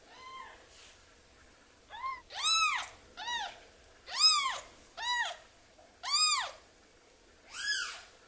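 Newborn kitten crying: a series of high mews, each rising and then falling in pitch. A faint one comes just after the start, then seven louder ones from about two seconds in, roughly once a second.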